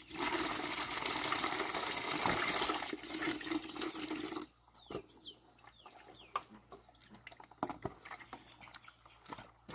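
Water running or pouring steadily, cutting off abruptly about four and a half seconds in; after that it is quieter, with scattered clicks and a few short, high chirps.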